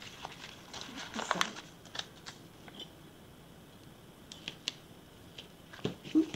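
Paper stickers being handled: a sticker peeled from its sheet and handled over the planner pages, with paper rustles and scattered light clicks and taps. A louder swish comes about a second in, and the loudest tap near the end.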